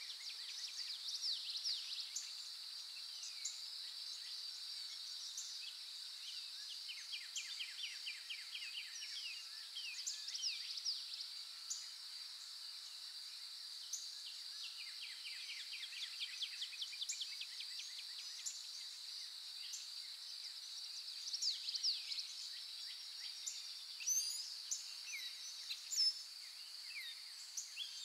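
Outdoor nature ambience: a steady, high-pitched insect drone, with birdsong in fast trills of short falling notes recurring every few seconds.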